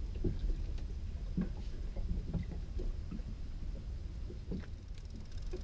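Outboard motor of a small fishing boat running at trolling speed, a low steady rumble, with faint scattered knocks.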